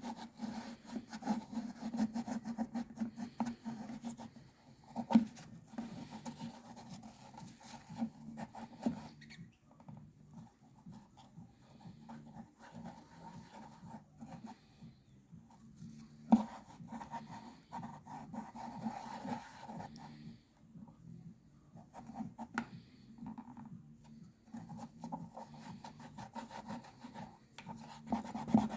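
Paper towel scrubbing sticky sticker residue off the plastic case of a Macintosh SE, in uneven rubbing strokes. There are two sharp knocks, about five and about sixteen seconds in.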